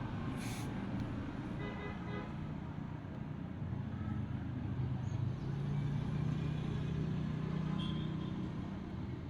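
Road traffic noise: a steady rumble of passing vehicles, with a brief horn-like tone about two seconds in and a louder low drone over the second half.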